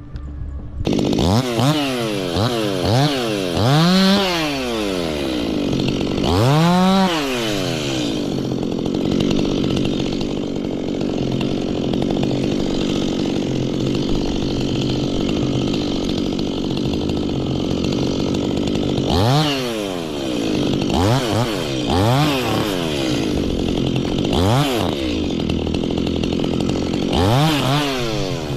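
Two-stroke Stihl chainsaw revved up and down several times from about a second in, then held at a steady high speed for about ten seconds, then revved up and down repeatedly again.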